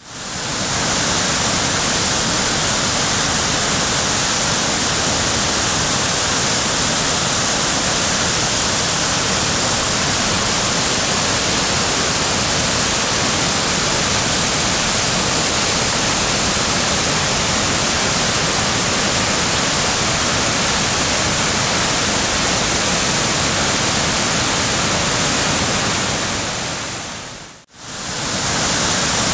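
A steady, loud rushing noise with no pitch, like running water or hiss. It fades out to silence for a moment near the end and comes straight back.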